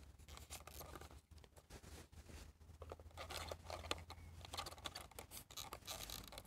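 Faint, scattered clicks and scraping of hard plastic as a small screwdriver prises at the housing of a fuel pump and filter module, working its clip tabs loose.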